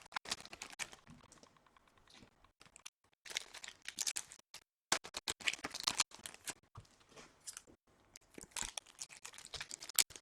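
Crinkling and crackling of Topps Chrome foil card pack wrappers being handled. It comes in several short spells with quiet gaps between.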